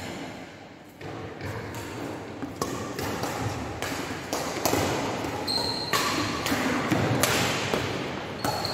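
Badminton rally: rackets striking the shuttlecock with sharp clicks, mixed with footsteps and a couple of short high squeaks on the court floor, busier in the second half.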